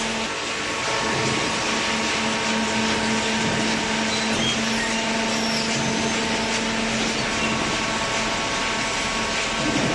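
Hydraulic cardboard baler running steadily: a constant machine hum with a few steady tones over its noise, and a small clunk near the end.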